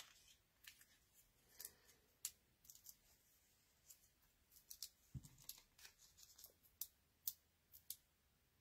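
Near silence with faint scattered clicks and ticks of paper handling, as foam adhesive dimensionals are peeled from their backing strip and pressed onto a die-cut paper piece. There is one soft thump about five seconds in.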